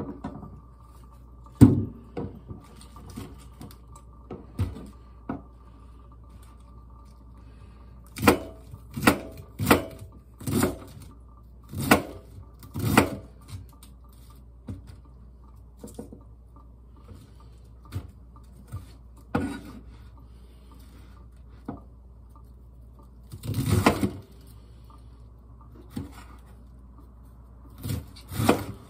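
Kitchen knife cutting through a head of cabbage onto a cutting board: crisp, separate cuts and knocks at an uneven pace, with a quicker run of about six chops about eight seconds in and a longer rough crunching stroke near the end.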